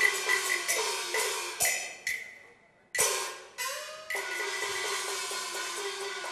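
Cantonese opera percussion ensemble of gongs, cymbals and wood block playing fighting-scene percussion. It starts with quick strokes, stops briefly, then comes a loud crash about three seconds in, a short gliding gong ring, and from about four seconds on a steady dense clatter.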